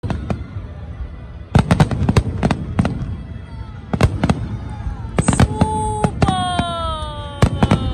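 Aerial fireworks bursting overhead: sharp bangs of exploding shells come in quick clusters. Late on, a high tone holds briefly, and then another slides slowly down in pitch over the last two seconds.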